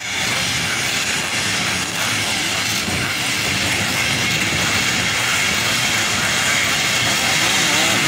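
A full start line of motocross motorcycles running together, many engines revving and blipping over one another in a steady, dense mix while the riders wait for the start.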